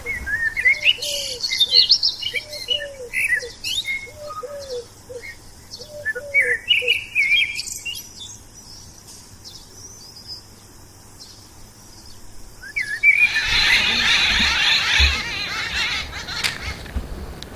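Birds chirping and calling, with short quick chirps and a repeated lower call in the first half. About thirteen seconds in, a louder chorus of many birds chattering together for a few seconds.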